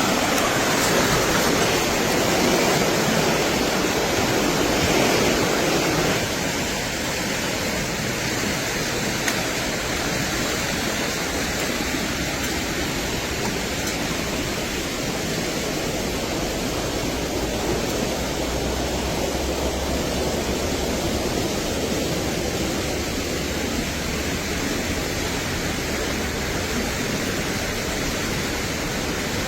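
Steady rushing noise with no distinct events, dropping a little in level about six seconds in.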